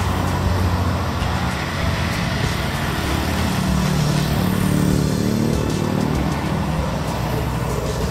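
A motor vehicle passing on the road, its engine and tyre noise swelling about halfway through, over background music.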